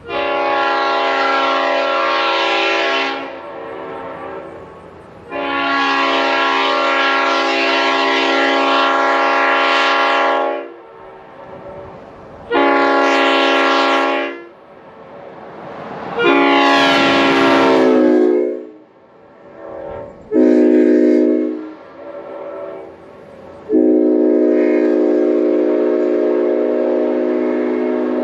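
A 1953 Leslie S5T five-chime air horn blowing its chord in six blasts, some long and some short. One blast slides up in pitch as it sounds, and the last is still sounding at the end.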